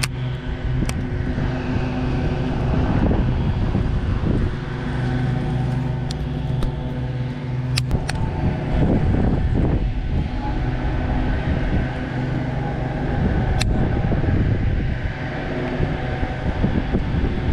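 A steady motor drone holding one pitch throughout, with a few sharp clicks scattered through it.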